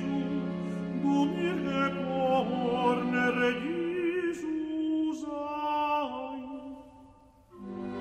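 Classical vocal and orchestral music: a voice sings a melody with vibrato over sustained chamber-orchestra notes. Near the end the phrase dies away almost to silence, and a new held low chord enters.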